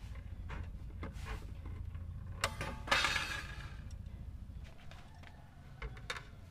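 Paper template and thin brass sheet being handled: a few light scraping strokes of a knife blade on paper, a sharp click, then a short, crisp rattling rustle about three seconds in, and small taps near the end.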